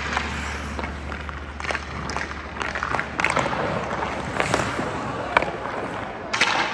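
Hockey skate blades scraping and carving on rink ice, with several sharp clacks of stick and puck.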